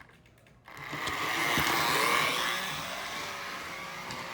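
Small electric motor of a restored toy switcher locomotive running loud and rough, with a whine that rises and falls. It drops out for a moment at the start, then picks up again. The motor still throws sparks from the locomotive.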